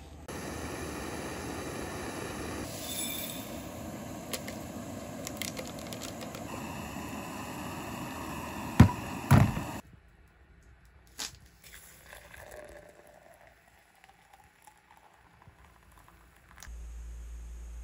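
Canister gas stove burning steadily under a small pot of water at a rolling boil, with scattered clicks. Two loud knocks come a little past halfway. The burner noise then stops, leaving only faint clinks and handling.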